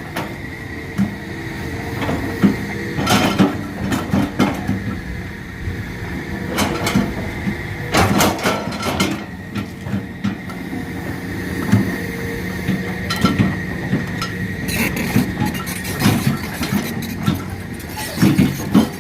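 Excavator's diesel engine running steadily with a constant high whine, broken by a series of irregular metallic clanks and knocks.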